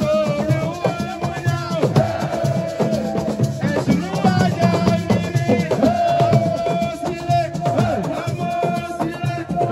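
Music with drums and percussion under a singing voice, over a long held note.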